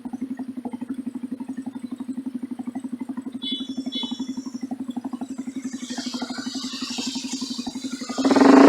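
Engine exhaust idling with a steady, even pulse, then revving up sharply near the end.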